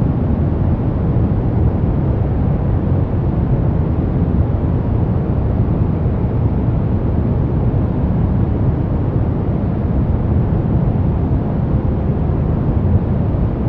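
Steady, unbroken noise track sold as white noise for relaxation, deep-sounding with most of its energy in the low end and no changes or events.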